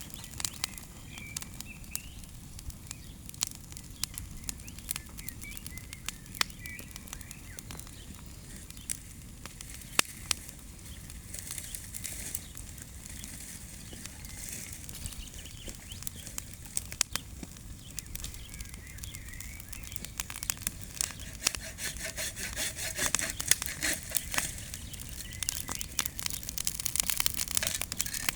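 Bonfire of dry leaves and branches crackling with irregular sharp pops, growing denser and louder in the last third. Small birds chirp faintly a few times.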